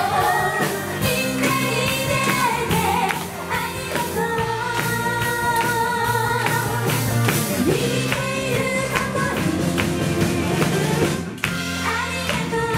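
Female vocalists singing pop with a live band of drum kit, electric bass, electric guitar and saxophone. About eleven seconds in, the band stops for an instant and comes straight back in.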